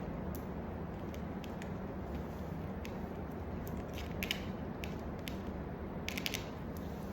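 Tarot cards being handled: scattered faint clicks, with two short crisp snaps of card stock, about four seconds in and again about six seconds in, over a steady low hum of room noise.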